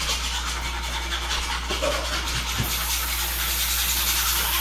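A steady hiss over a low hum, the hiss turning brighter a little over halfway through.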